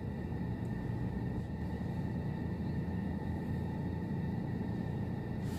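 Steady low rumble of a car idling, heard from inside the cabin, with a faint steady high hum above it.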